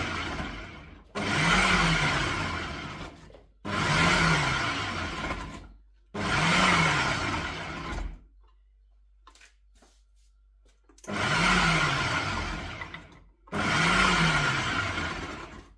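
Ninja food processor chopping okra in short pulses: the motor spins up and winds down again, about two seconds a pulse, six times, with a pause of about three seconds after the third full pulse.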